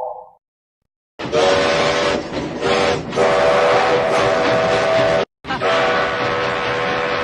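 Train whistle sounding a chord of several steady tones over a hiss. It starts about a second in with a blast of about a second, then a couple of short toots, then two long blasts separated by a brief break.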